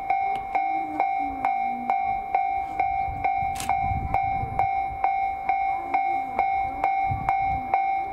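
Railway level-crossing alarm ringing steadily, its bell tone struck about twice a second, with low rumbling swelling briefly in the middle and again near the end.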